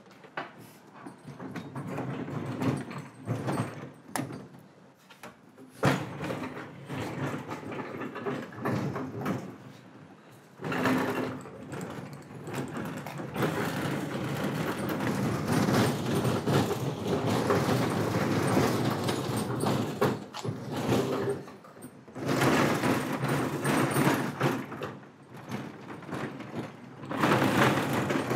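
Heavy steel rolling tool chest pushed across a concrete floor, its casters rumbling in long stretches with short pauses, starting about a third of the way in. Before that, scattered knocks and clunks as it is handled.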